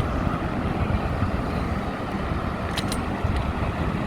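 Road traffic noise on a busy multi-lane road, heard from a bicycle: a steady low noise of passing vehicles, with a couple of sharp clicks about three seconds in.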